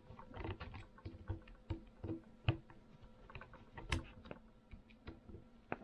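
Screwdriver turning screws on a Tillotson HR76A carburetor's metal body: a string of light, irregular clicks and ticks, the sharpest about two and a half and four seconds in.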